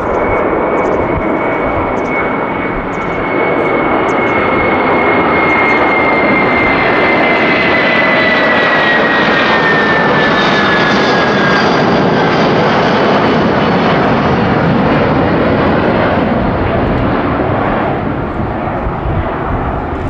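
Airbus A330-300's Pratt & Whitney PW4000 turbofans at takeoff thrust as the airliner climbs out past overhead: loud steady jet noise with a high whine that slowly falls in pitch. It grows louder about four seconds in and eases near the end as the aircraft moves away.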